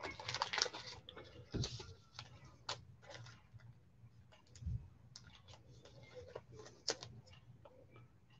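Gloved hands handling trading cards and their plastic: a rustling flurry at first, then scattered sharp clicks and taps and one soft thump about halfway through.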